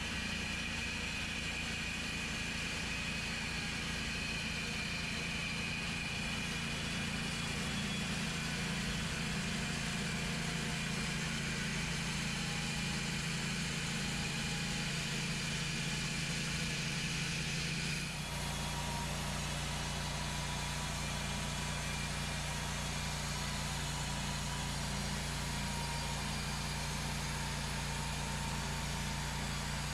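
Portable sawmill's engine running steadily, its tone shifting abruptly about eighteen seconds in.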